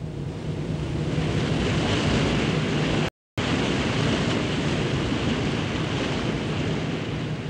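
Steady rushing of sea water and wind, with a low steady hum beneath. It swells up at the start and is cut by a brief total dropout about three seconds in.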